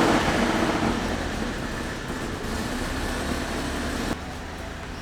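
BMW E46 engine just started, running at a raised idle that eases down and settles. The level drops suddenly about four seconds in.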